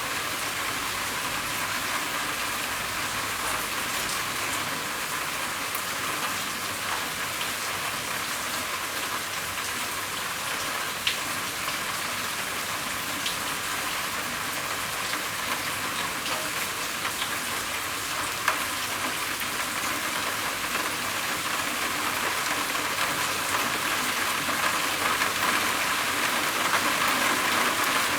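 Steady rain drumming on a roof, an even hiss with a few sharper drop ticks, growing a little heavier near the end.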